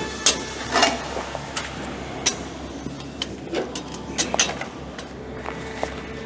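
Irregular clinks and knocks of sheet-metal vent pipe and fittings being handled and fitted together, over a steady low hum.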